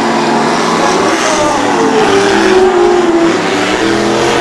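Racing powerboat engine running at high revs, its pitch falling through the middle as the boat runs past and rising again near the end.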